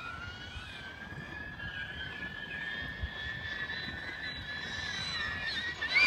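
DJI Avata FPV drone flying overhead, its propellers giving a steady high whine that drifts a little in pitch and climbs right at the end as it speeds up. Wind rumbles on the microphone underneath.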